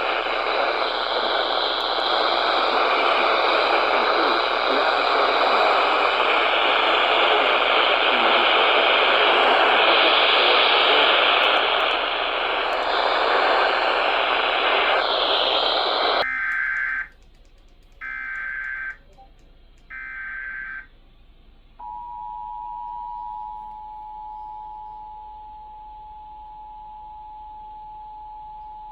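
Loud radio static hiss that cuts off suddenly, followed by three one-second screeching data bursts of an Emergency Alert System SAME header. Then comes the steady two-tone EAS attention signal.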